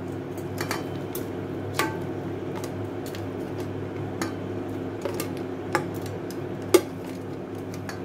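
A plastic spoon clinking and scraping against a stainless steel plate as fried pork cubes are pushed off into a pot of boiling water. There are sharp clicks every second or so, the loudest near the end, over a steady low hum.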